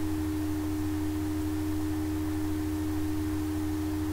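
Steady background hum: a constant low drone with a steady pitched tone above it, unchanging throughout.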